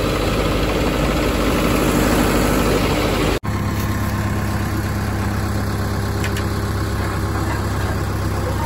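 Diesel engine idling steadily, a low, even hum; the sound briefly cuts out about three and a half seconds in, then the idle carries on unchanged.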